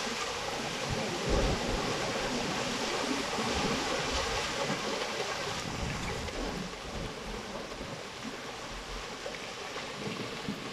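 Steady rush of floodwater, with irregular low rumbles, easing slightly about halfway through.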